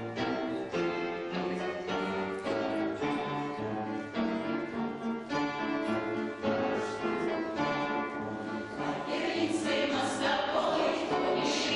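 Live choral performance: an accompaniment starts a song with a run of distinct, evenly paced notes, and a choir's singing grows fuller toward the end.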